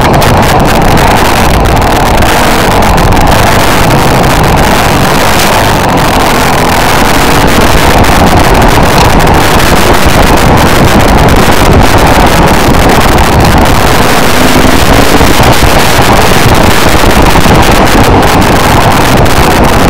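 Off-road vehicle engine running steadily while riding a dirt trail, with wind buffeting the microphone. Loud throughout.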